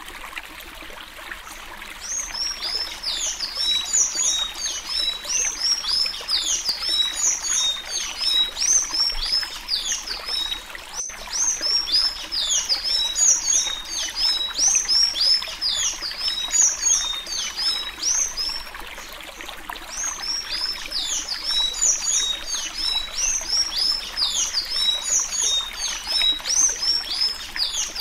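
Sanhaço-azul (blue tanager) singing the 'suí suí' Alagoano song: long runs of rapid, high, squeaky notes, each sliding downward. The singing starts about two seconds in and breaks off briefly a little past the middle. A steady trickling-water sound runs underneath.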